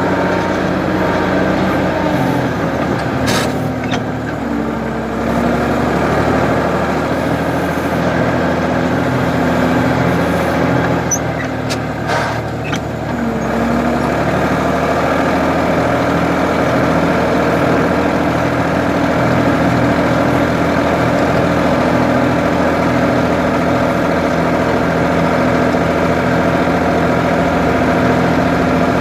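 Ford 550 backhoe engine running steadily under work, its pitch dipping briefly twice, with a few short knocks.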